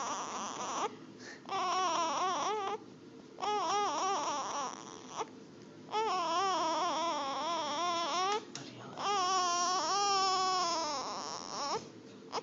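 Infant crying in long, wavering wails, about five cries with short breaths between them.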